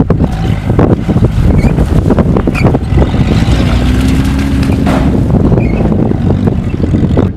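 A car driving over rough gravel and stones: a continuous low rumble with irregular knocks and cracks, and wind noise on the microphone.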